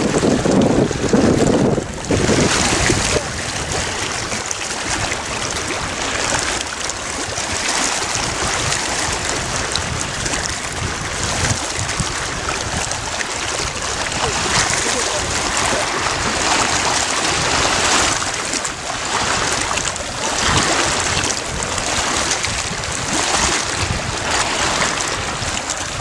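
Wind buffeting the microphone: a rushing hiss that swells and eases in gusts every few seconds, heavier and deeper for the first two seconds.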